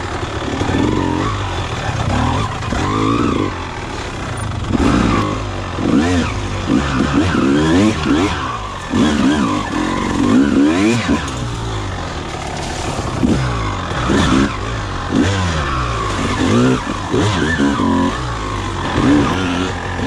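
1999 Honda CR250R single-cylinder two-stroke dirt bike engine under throttle on rough trail, the revs rising and falling over and over as the throttle is opened and closed every second or two.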